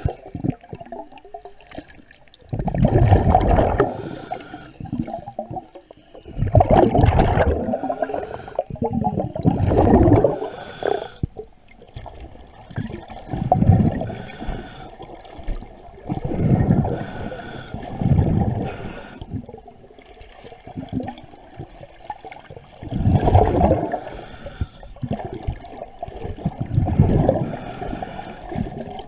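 Underwater bubbling and gurgling in repeated surges every few seconds, the sound of air bubbles streaming past the camera during underwater hull cleaning.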